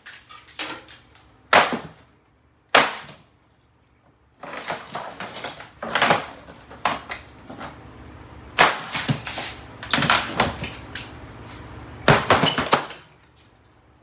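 Door of a Kenmore mini fridge being smashed: two sharp blows in the first few seconds, then three longer bursts of crashing and clattering with short pauses between.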